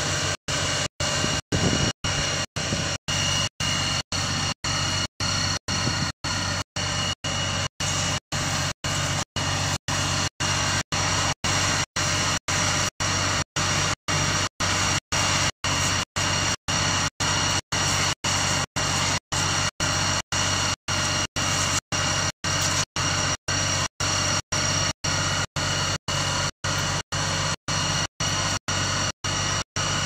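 Heavy truck engine running steadily, with a constant low hum and a steady whine, as from a fire engine running its pump.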